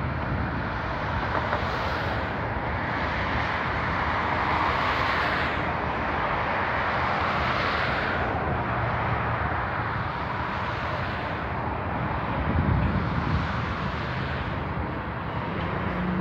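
Freight cars rolling past on steel rails: a steady rumbling rush of wheels on track that swells and eases, with a brief louder low knock about three-quarters of the way through.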